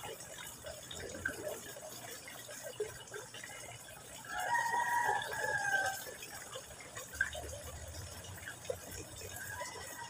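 Water trickling steadily from a hose into a garden pond. About four seconds in comes a single long bird call lasting about a second and a half, falling slightly at its end, with the start of another call near the end.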